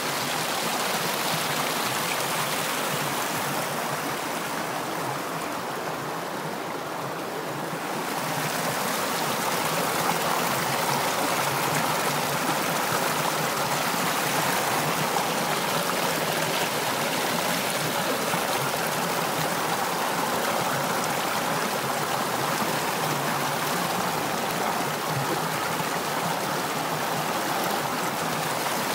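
Fast river water rushing over boulders in a steady, even hiss. The highest part of the hiss thins for a few seconds about four seconds in, then comes back and holds steady.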